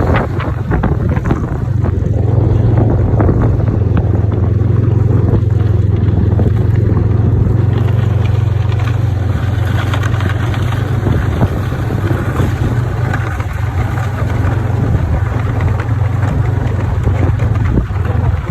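Snowmobile engine running steadily under way, a constant low drone with rough noise over it.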